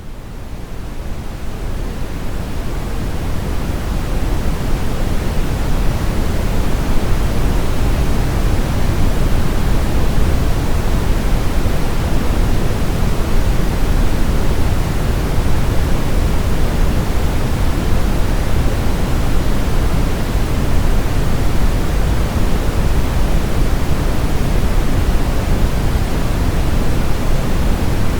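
Brown noise: a steady, deep, even hiss weighted toward the low end, fading in over the first few seconds and then holding level.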